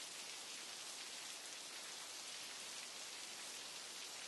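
Faint steady rain, an even hiss of falling rain that does not change.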